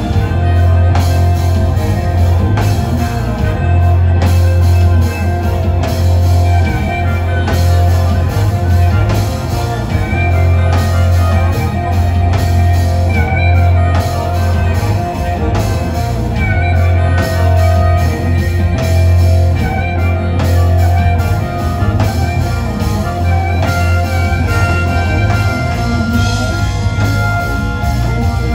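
Live rock band playing loudly: electric guitar, bass guitar and drum kit, with a harmonica wailing through the singer's microphone.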